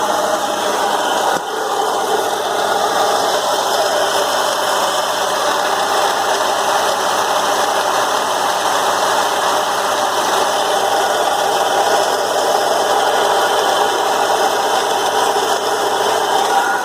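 BMW E36 M3 straight-six idling with a loud, steady mechanical noise from the AC compressor and its pulley. The compressor has play and has damaged the pulley.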